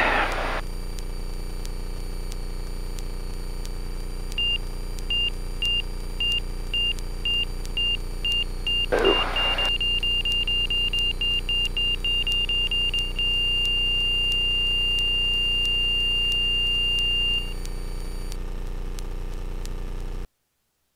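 Light-aircraft engine drone heard from the cockpit, with a high warning beep that repeats faster and faster and then holds as one steady tone for about four seconds. This is the angle-of-attack stall warning as the plane slows toward the stall for landing. Two short bursts of noise come near the start and about nine seconds in, and the sound cuts off just before the end.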